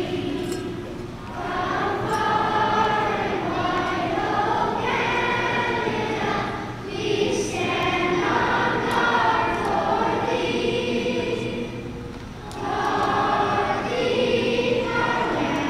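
A large choir singing the national anthem in long held notes, phrase by phrase, with short breaks between the phrases.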